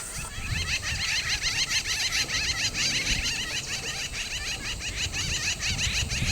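A bird calling a long, fast, even run of repeated high notes, about ten a second, that stops near the end.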